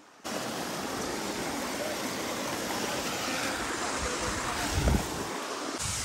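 Steady rush of water from a waterfall and its rocky stream, with a brief low rumble about five seconds in.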